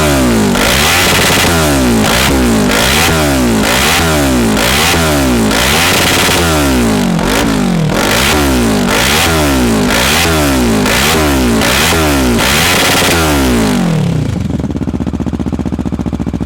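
Kawasaki ER6N's parallel-twin engine through an aftermarket sport exhaust, revved in quick blips about once a second. It drops back to a steady idle near the end.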